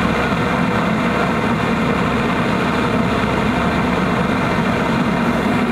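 Airliner cabin noise heard from a window seat: the engines and rushing air make a steady, loud, even drone.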